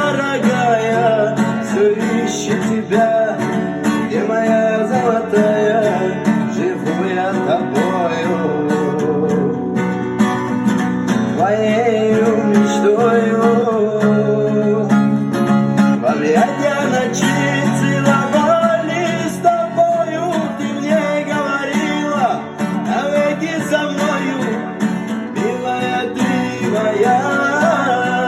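Music with acoustic guitar and a singing voice, playing steadily.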